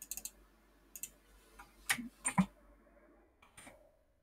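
Computer mouse clicks and keyboard keystrokes: a quick cluster of clicks at the start, then single sharp clicks roughly a second apart, the loudest two near the middle, with fainter ones near the end.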